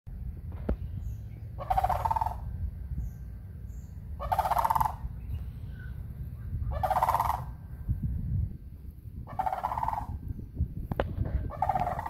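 Sandhill cranes giving their rattling calls: five calls of under a second each, about two and a half seconds apart, with a low rumble underneath.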